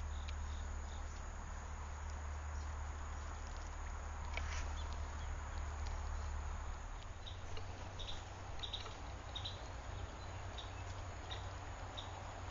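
Outdoor ambience with faint, short high chirps repeating about twice a second in the second half, over a low steady hum that fades out about seven seconds in.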